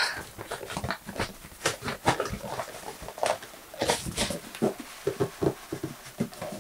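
Cardboard packaging being handled: the white inner box rubbing, scraping and knocking against the outer box as it is pulled out, in many short, irregular rustles and squeaks.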